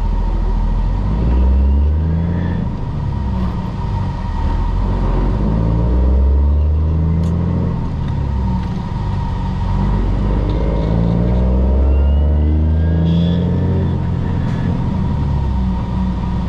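Cummins ISM diesel of a 2000 Freightliner FLD 112 semi, heard from inside the cab, accelerating through the gears. The engine note climbs and drops back with each of about six upshifts of the manual transmission. A steady thin high tone runs over it.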